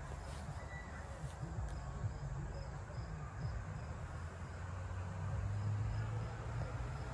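Insects chirping outdoors: a faint high chirp repeating about three times a second, over a low rumble that grows a little louder about five seconds in.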